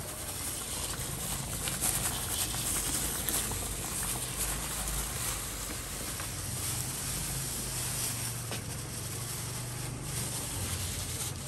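A large pan of milk and sugar cooking over a low fire, giving a steady hiss with many faint crackles.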